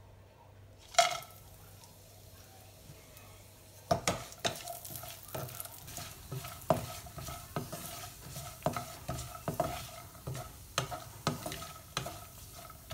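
A single sharp knock on the pan about a second in, then from about four seconds a wooden spatula stirring sliced almonds frying in ghee in a nonstick kadai: irregular knocks and scrapes against the pan, each with a short ring, over a light sizzle.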